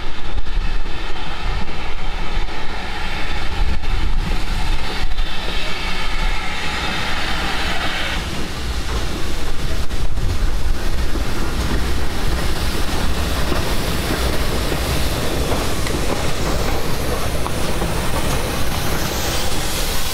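Railway carriage running along the track, heard from on board: a steady low rumble with wheel clatter, and a high whine over it for about the first eight seconds that cuts off suddenly.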